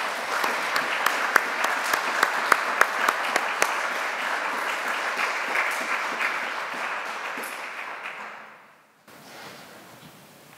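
Audience applauding: a steady patter of many hands clapping that dies away after about eight seconds.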